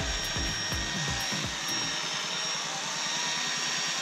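Powered rotary polisher running steadily, its pad rubbing metal polish into a forged aluminium wheel, with a constant high motor whine. A low rumble under it stops about two seconds in.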